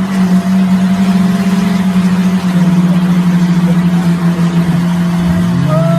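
Off-road vehicle's engine held at high revs under load, a loud steady drone that dips slightly in pitch about halfway through.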